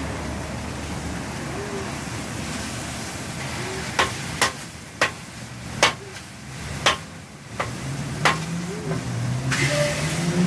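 Food sizzling on a street-cart flat-top griddle, with a metal spatula striking the griddle in a run of about seven sharp clacks through the middle.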